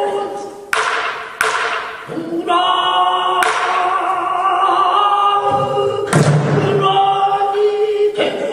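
A male pansori singer singing a line of a creative pansori in long held notes, with several sharp drum strokes, typical of the buk barrel drum that accompanies pansori, marking the phrase.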